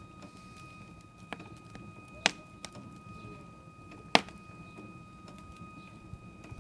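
Wood fire crackling, with three sharp pops about a second, two seconds and four seconds in, over a steady faint high whine.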